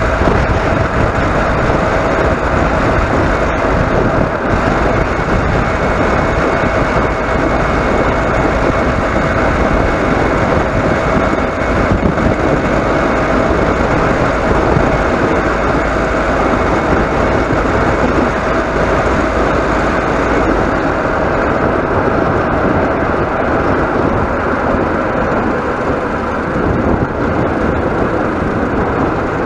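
A vehicle driving steadily along a road, its engine and road noise close to the mounted camera, with a steady hum running through it.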